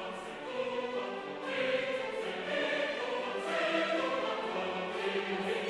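Background music: a choir singing sustained, classical-sounding lines.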